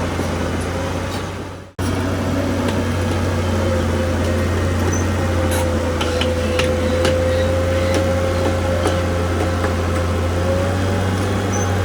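Heavy diesel earthmoving machinery running steadily: a constant low engine hum with a wavering whine above it and a few light clicks. The sound cuts out abruptly for an instant about two seconds in, then resumes.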